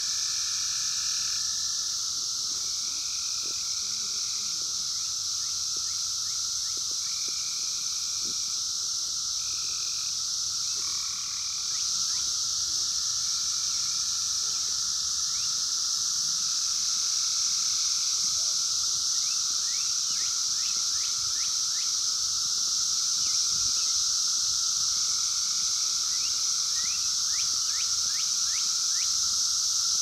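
A dense chorus of 17-year Brood X periodical cicadas (Magicicada): a steady, high-pitched, hissing drone with a lower steady whine beneath it. Short repeated calls and quick runs of rising chirps sound over the chorus now and then.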